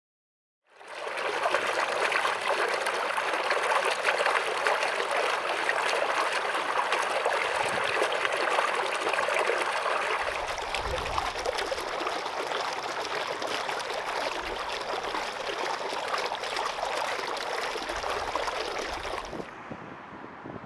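A stream's water flowing and trickling steadily. About halfway through, the sound changes abruptly and low rumbling gusts of wind buffeting the microphone come and go over the water.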